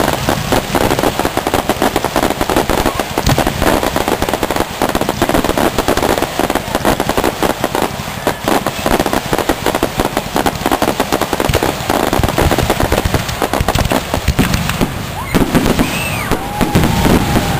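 Aerial fireworks display: a dense, unbroken barrage of rapid, overlapping bangs and crackles as many shells burst.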